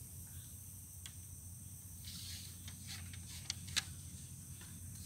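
A few light clicks and taps of a ramrod against the barrel of a muzzleloading flintlock rifle as the ball is seated on the powder, the loudest about four seconds in, over a steady chorus of insects.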